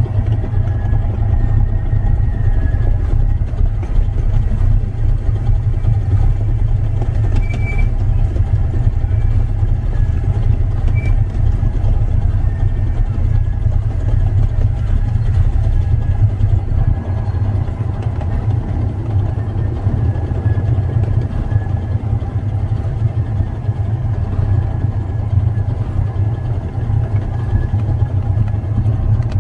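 Small locomotive running along the track, heard from on board at the front of the engine as a loud, steady low rumble.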